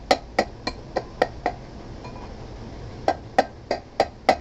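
Quick metallic taps, about three a second, in two runs of five or six with a pause of about a second and a half between them: the metal end cover of an electric flour-mill motor being knocked into its seat on the motor body.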